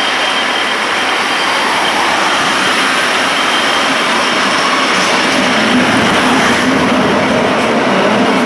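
Rhaetian Railway narrow-gauge train running, heard from aboard as a loud, steady rolling noise of wheels on rail, with a low hum growing near the end.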